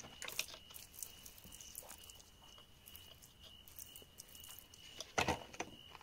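Faint scrapes and small clicks of grit and soil as a smooth pink stone nodule is worked loose from a wet dirt wall by hand. About five seconds in comes a short cluster of louder knocks and scrapes as fingers grip the stone to pull it free.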